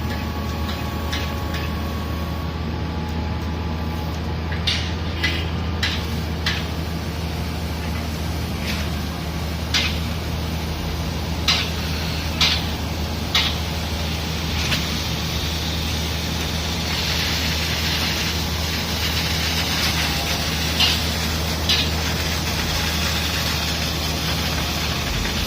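Heavy construction machinery's diesel engine running steadily at a low hum, with about a dozen sharp knocks at irregular intervals.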